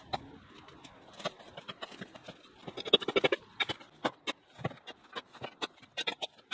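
Rake and shovel scraping and knocking on dirt and concrete while clearing garden debris: an irregular run of short scrapes and knocks, busiest about three seconds in.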